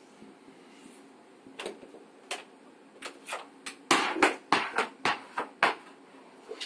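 A quick, irregular run of about a dozen sharp taps and knocks, the loudest about four seconds in, after a quiet start.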